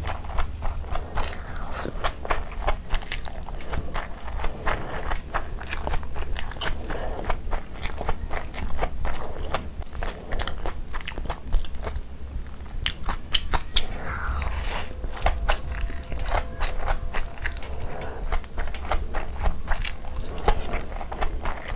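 Close-miked eating of stir-fried noodles: wet chewing, smacking and biting mouth sounds, with many irregular small clicks.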